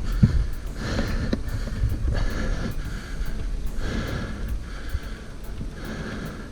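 A cyclist breathing hard while riding, in puffs about once a second, over a steady low rumble of wind and tyres on the microphone.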